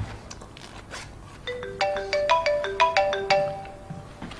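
Mobile phone ringtone: a quick melody of short, bright notes that starts about a second and a half in and stops shortly before the end.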